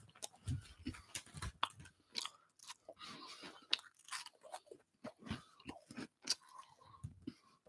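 A man chewing Cheetos close to a microphone: irregular crunching and crackling mouth clicks.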